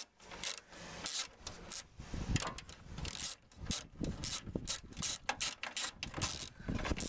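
A small bolt and washer being unscrewed by hand from the front panel frame of a Land Rover Defender: irregular metallic clicks and scraping from the threads and washer, with fingers rubbing on the metal.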